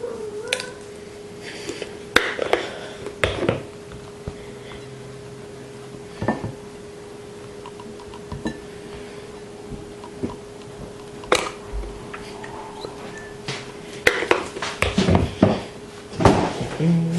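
Plates and cutlery clinking and knocking as they are handled, in irregular clusters, over a steady faint hum.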